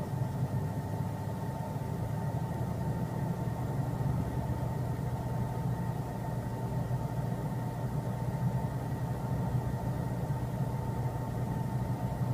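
A steady low mechanical hum with a faint thin whine above it, unchanging throughout.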